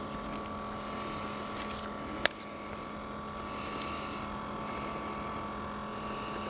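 A small motor humming steadily at a constant pitch over an even hiss, with one sharp click a little over two seconds in.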